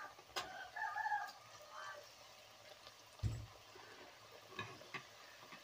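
Thattai (rice-flour discs) deep-frying in hot oil in a kadai with a faint, steady sizzle. A few short pitched sounds in the first second or so and a dull thump a little after three seconds stand out above it.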